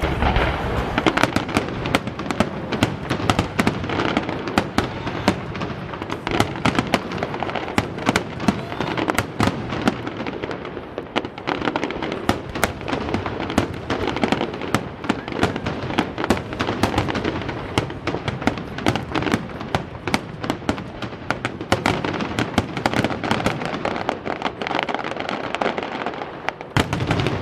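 Aerial fireworks finale: a dense, continuous barrage of shell bursts, loud bangs following one another several times a second over steady crackling.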